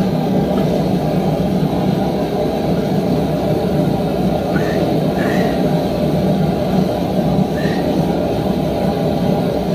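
A steady low roar fills the workshop while a red-hot square bar is twisted in a post vise with a homemade pipe-wrench twisting wrench. A few faint short squeaks of the wrench working on the steel come through.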